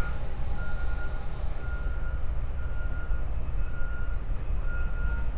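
Reversing alarm beeping at a steady rate of about once a second, with a half-second single-pitch beep each time, over the low rumble of a running engine or machinery.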